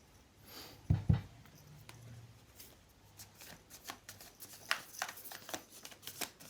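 Tarot cards being shuffled and handled: a couple of soft knocks about a second in, then a run of quick card flicks and taps through the last couple of seconds.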